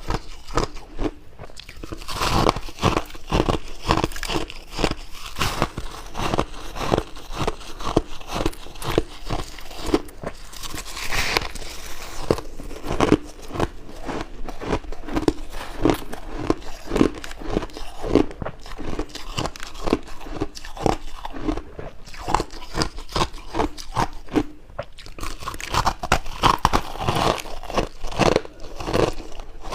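Close-miked crunching and chewing of white ice chunks: many quick, crisp crunches a second, steady and loud throughout.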